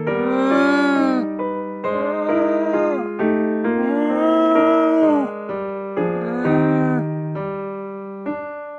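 Background music: an electric piano or keyboard tune of held chords, with a melody whose notes bend up and back down.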